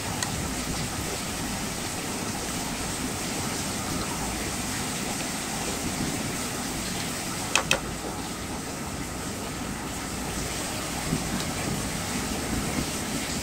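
Metal spoon stirring thin rice-flour batter in a bowl, with two sharp clicks close together about seven and a half seconds in as the spoon knocks the bowl, over a steady background rumble.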